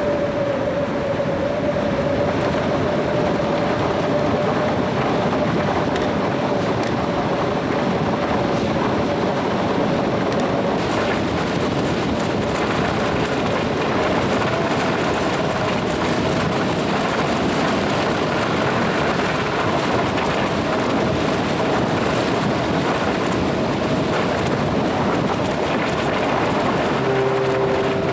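Ferry under way: a steady rumble of the ship's engines and rushing wind. A faint steady whine sits over it.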